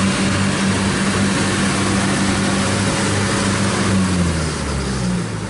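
Kubota DC60 combine harvester's diesel engine running steadily at working speed, with the wide rushing noise of the machine over it. About four seconds in, the engine pitch slides down and the sound grows quieter.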